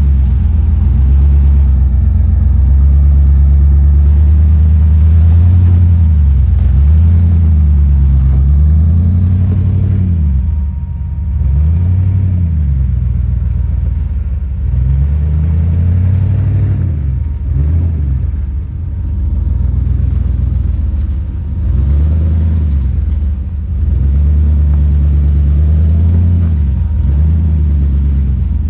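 A Jeep Comanche pickup's engine, loud and low, revving up and easing off again and again as the truck crawls over a rock step under load.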